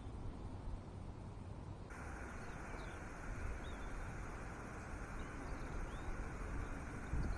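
Outdoor ambience: low wind rumble on the microphone. About two seconds in the background switches abruptly to a steadier hiss, with a few faint, short bird chirps scattered through it.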